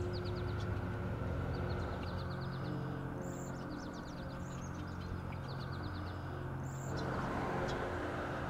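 Small songbirds giving quick high trills, four short runs of rapid notes at about ten a second, with a few single sharp high notes. Under them runs a steady low mechanical hum with a rushing noise that grows louder about seven seconds in.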